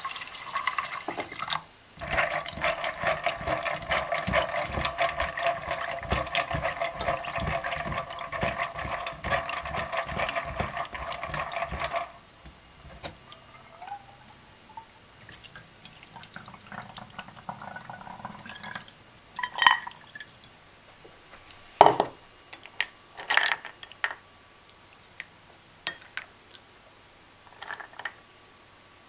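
Tap water running hard into a metal strainer of cashews in a stainless-steel sink, a steady rush with a ringing tone, cut off sharply about twelve seconds in. After that, a few sharp knocks and clinks of a bowl and dishes being handled.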